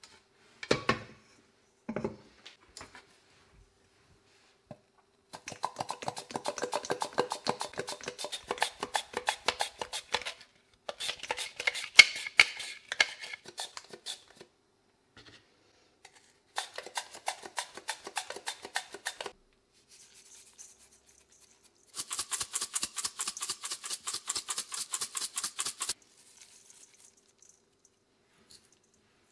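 Raw potatoes being sliced on a handheld plastic mandoline into a stainless steel bowl. The slicing comes as several runs of quick, even strokes with pauses between them. A couple of knocks near the start as things are set down on a wooden board.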